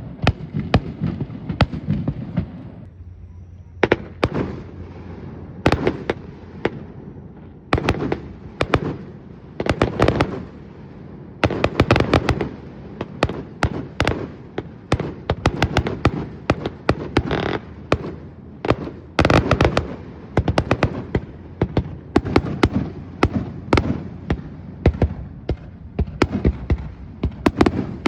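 Aerial firework shells bursting one after another, a dense string of sharp bangs and crackles, with a brief lull about three seconds in.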